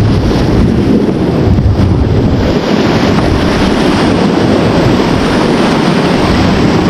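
Loud, steady rush of river water around an inflatable raft, with wind buffeting the microphone.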